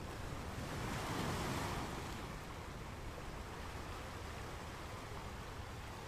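Ocean waves washing on a beach: one wave swells and breaks in the first two seconds, then a steady wash of surf.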